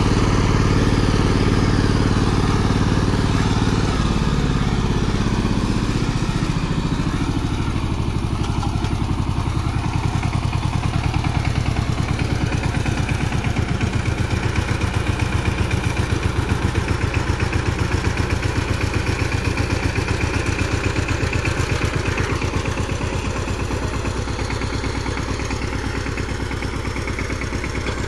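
Two-wheel tractor's single-cylinder diesel engine running steadily, with a rapid, even beat of firing strokes that becomes more distinct about six seconds in.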